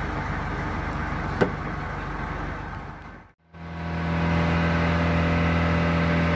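Outrigger boat's engine running steadily while under way, with a single click about a second and a half in. After a brief dropout just past three seconds in, the engine continues as an even, steady low hum.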